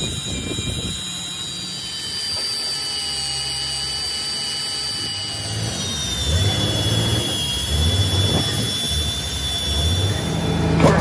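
Heavy electric drill boring through a steel truck chassis rail: the motor whines steadily and the bit squeals in the metal.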